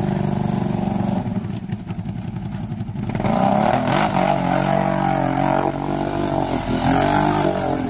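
Kawasaki ATV engine revving hard under load as it churns through deep mud and water, its pitch rising and falling. It eases off about a second in, then revs louder again from about three seconds in.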